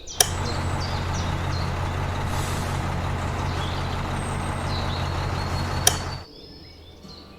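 A vehicle engine running steadily, with a low even hum under a hiss. It starts sharply with a click and stops suddenly about six seconds in.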